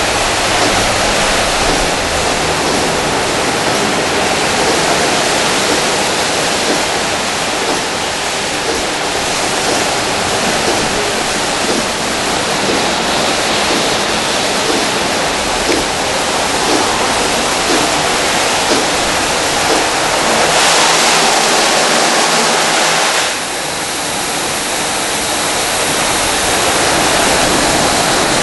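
Water jets of an automatic tunnel car wash spraying a car, a steady loud hiss. It grows brighter about 20 seconds in, then drops suddenly about 23 seconds in and slowly builds back up.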